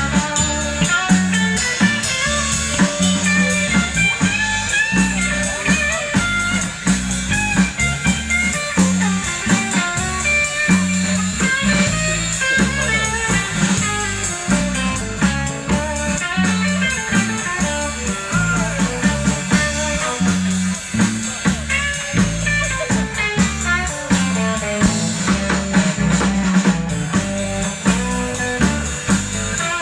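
Live rock'n'roll band playing an instrumental break: a lead electric guitar over bass and drum kit, with a steady beat.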